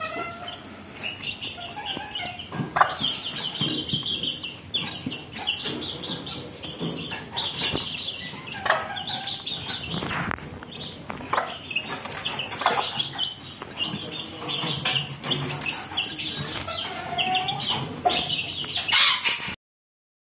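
A hen and her chicks: the chicks peep in quick, high, repeated calls while the hen clucks, with short knocks from pecking at the feed. The sound cuts off abruptly a little before the end.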